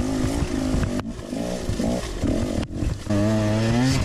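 Two-stroke enduro dirt bike engine revving up and down with quick blips of throttle, then held at a steady higher rev about three seconds in.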